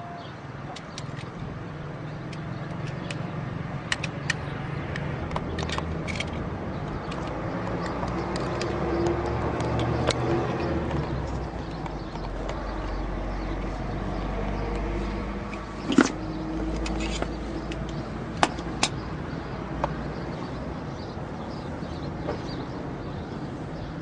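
Street traffic: a steady low rumble that swells midway, as of a vehicle passing, with scattered sharp clicks, the loudest about sixteen seconds in.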